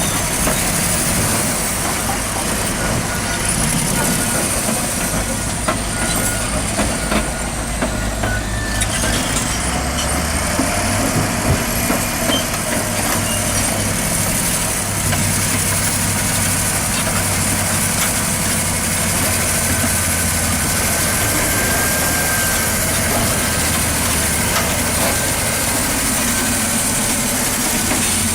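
Large bulldozer's diesel engine running steadily, its low engine note shifting about ten seconds in.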